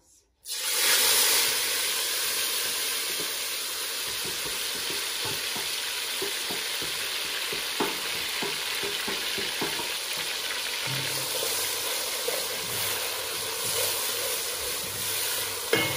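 Chopped onions, tomatoes and fresh peppers hitting hot oil and frying: a sizzle that starts suddenly about half a second in, loudest at first, then settles to a steady sizzle. A wooden spoon stirring adds light knocks in the later part.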